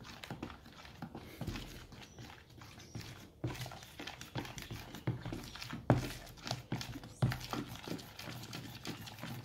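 Wooden stick stirring a thick slime mixture with styrofoam beads and baking soda in a plastic bowl: irregular taps and scrapes of the stick against the bowl, with a few louder knocks in the second half.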